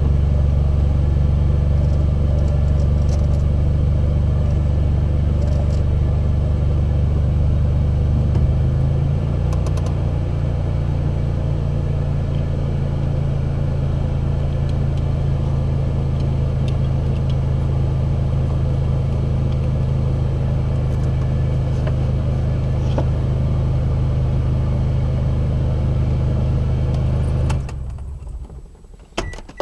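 Car engine idling steadily; its note steps down slightly about eight seconds in, and it is switched off and stops abruptly near the end.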